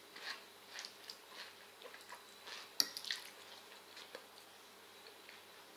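Quiet eating sounds: soft, wet chewing and mouth noises, with a fork clicking once against a glass plate about three seconds in.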